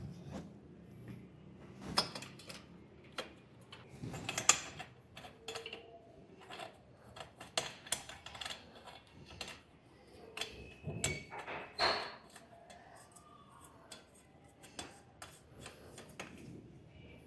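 Scattered metallic clinks, taps and scrapes of hand tools on metal as oxygen sensors are fitted and tightened into a motorcycle exhaust header, with a few louder knocks.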